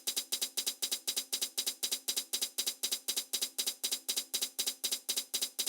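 A drum sample from a Native Instruments Maschine MK3 pattern repeating as a steady run of 16th notes, about seven sharp hits a second, as swing is applied to shift the timing toward a shuffle feel.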